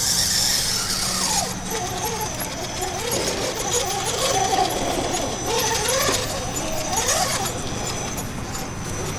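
Electric motor and gearbox of a small-tire RC rock crawler whining, the pitch rising and falling again and again as the throttle is worked to creep it over rocks.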